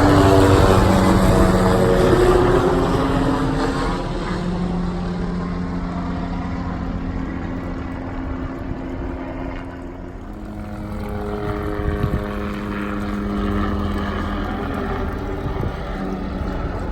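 Helicopter circling overhead, its engine and rotor drone loudest at first with the pitch falling as it passes. It fades, then grows louder again about ten seconds in as it comes back around.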